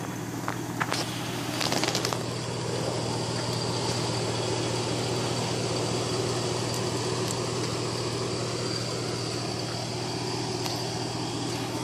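2010 Chevy Avalanche's V8 engine idling steadily, with a few sharp clicks and a short clatter in the first two seconds.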